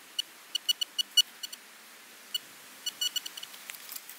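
Metal detector giving short, high beeps in quick irregular clusters as its search coil is swept over a freshly dug hole, signalling metal under the coil.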